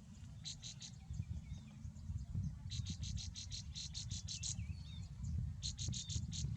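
Baby sparrows in the nest begging: trains of rapid, high, buzzy calls, about ten a second, in three bouts, with a few single cheeps between. A steady low rumble runs underneath.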